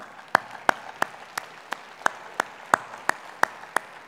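A man's hands clapping close to a headset microphone, sharp and even, about three claps a second, over a lighter steady patter of audience applause.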